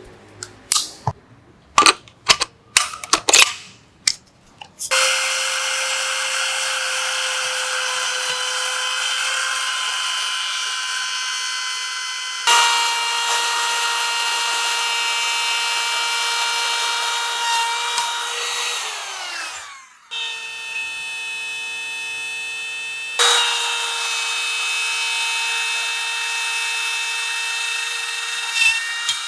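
Electric power tool motor running in three long runs, about seven, seven and six seconds, each ending with a falling whine as it winds down, and a shift in pitch partway through the first. Before it starts, a quick series of sharp knocks and clicks.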